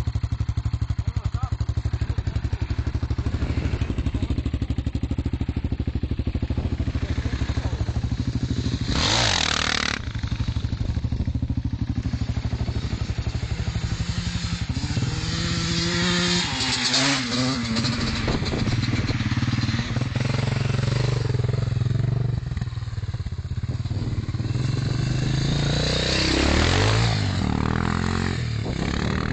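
Off-road motorcycle engine running close by, then revving as dirt bikes ride off across the field, the pitch rising and falling several times.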